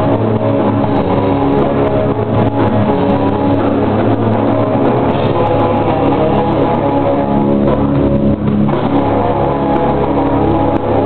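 A live rock band playing loud: electric guitars, bass guitar and a drum kit going together without a break.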